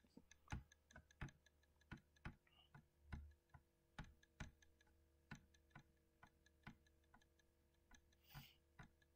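Quiet, sharp clicks from a computer mouse, irregularly spaced about every half second as a document is scrolled and navigated, over a faint steady hum.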